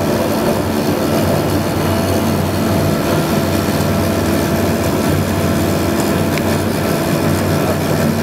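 Jetstream 31's Garrett TPE331 turboprop engines and propellers heard from inside the cabin while the aircraft taxis: a steady, loud drone with a low propeller hum in several steady tones.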